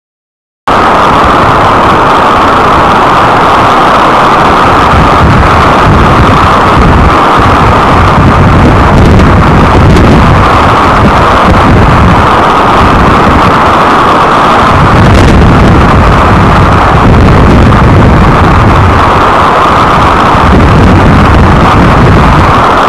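Storm wind blowing hard across an outdoor eagle-nest camera's microphone: loud, continuous rushing that swells and eases in gusts, starting abruptly just under a second in.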